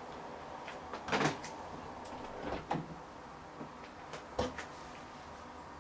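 A pot heating over a burning titanium Vargo Triad alcohol stove: a faint steady hiss with a few sharp, irregular ticks and knocks from the heating pot, the loudest about a second in.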